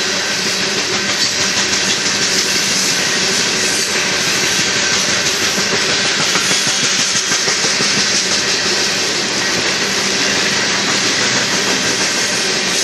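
Coal hopper cars of a Union Pacific freight train rolling past close by: a steady, loud rumble and rattle of steel wheels on rail that goes on without a break.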